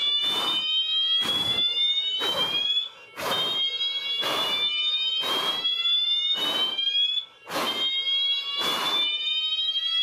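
Fire alarm sounders going off together, a Wheelock MT-24 horn among them: a high tone sweeping slowly upward and restarting every couple of seconds, with harsh buzzing blasts about once a second.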